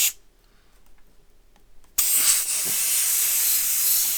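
Air hissing out at a tire's valve stem where an air pump's hose chuck is being worked. The hiss starts abruptly about two seconds in and runs on steadily.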